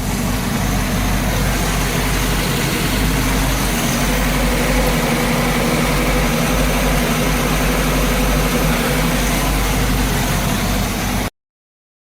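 Boat engine with an OMC Cobra sterndrive idling steadily on a test run after the repaired power steering cooler was fitted. It cuts off suddenly about eleven seconds in.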